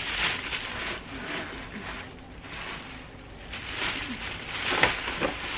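Tissue paper rustling and crinkling as it is handled and stuffed into a gift bag, with a few louder crinkles, the loudest near the end.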